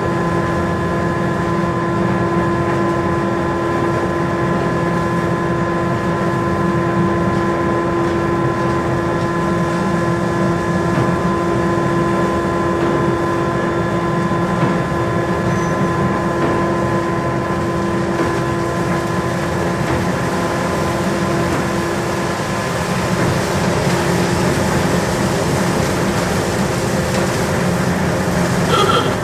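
Twin-tower cement mixing plant running while loading lorries: a steady mechanical rumble with several held machine tones over it. The tones fade out about three-quarters of the way through, leaving a rougher, noisier rumble.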